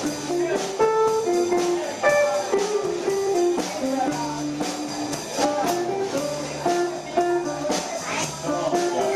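Live jazz combo playing an instrumental passage: a single-line melodic solo of quick, distinct notes over walking upright bass and drums with cymbals.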